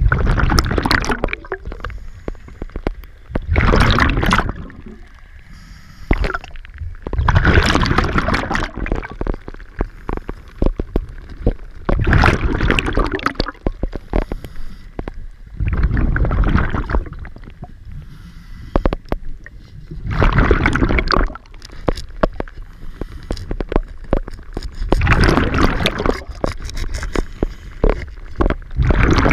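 A scuba diver's regulator venting exhaled air as bubbles. A gurgling burst comes about every four seconds, one with each breath, with quieter breathing noise between.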